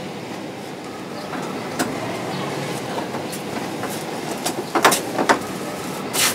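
Steady outdoor city background rumble. Over it, sharp plastic rustles and knocks come about five seconds in and again just before the end, from black rubbish bags being carried to the bins.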